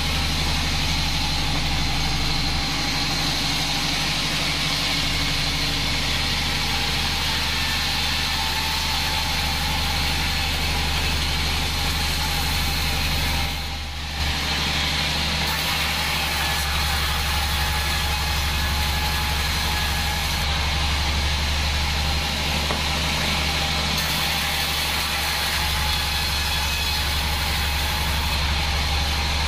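Homemade band sawmill running steadily as a mahogany log is fed through the blade, with a low drone from its drive and a thin high whine on top. The sound dips briefly about halfway through.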